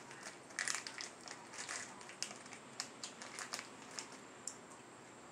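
Plastic candy bag crinkling as it is handled and dug into, a run of crackles over the first few seconds, then a few sharp clicks.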